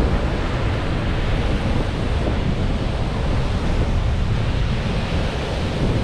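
Gulf of Mexico surf washing onto the beach, with wind buffeting the microphone in a steady low rumble.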